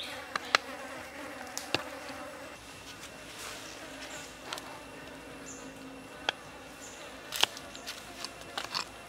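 A kitchen knife knocking and cutting on a wooden chopping block: about ten sharp knocks at irregular intervals, the loudest about half a second in and near seven and a half seconds. Insects buzz steadily behind them.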